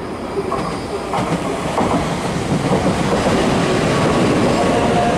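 N700A Shinkansen train running in along the platform, its wheel and running noise growing steadily louder as the cars come past close by.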